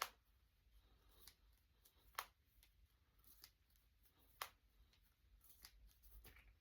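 Finger knuckles cracking: about six sharp pops spaced a second or so apart. The loudest come at the start, about two seconds in and about four and a half seconds in.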